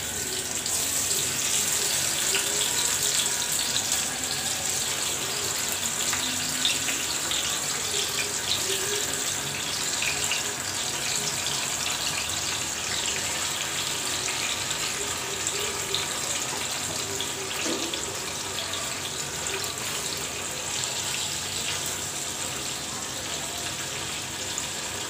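Koi fish (climbing perch) shallow-frying in hot oil in a non-stick frying pan: a steady sizzle with scattered crackles and pops.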